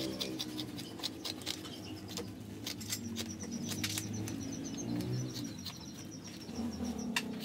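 Rustling and light clicks of fiberglass packing being handled and stuffed into a motorcycle exhaust silencer during a repack, with birds chirping in the background.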